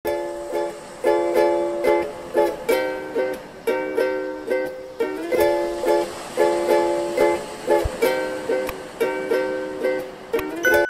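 Upbeat background music of strummed chords on a plucked string instrument, in an even, bouncy rhythm.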